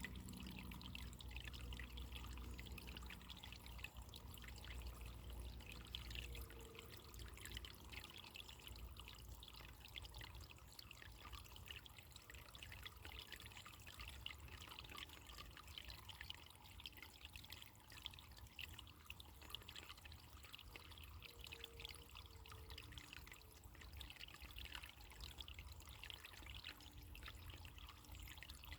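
Running water flowing steadily and faintly, a continuous fine-textured rush with no break.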